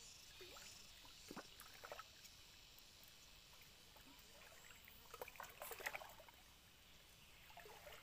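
Near silence: faint outdoor hiss with a few soft clicks and taps, most of them in a short cluster a little past halfway.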